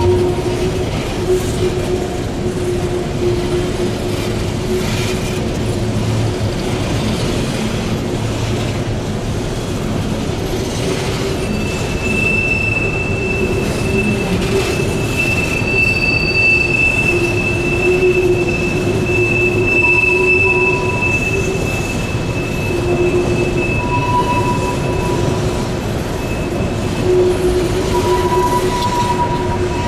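Empty coal hopper cars rolling past on a curve, their wheels rumbling on the rail with a steady flange squeal. A higher-pitched squeal joins about twelve seconds in and holds for most of the rest.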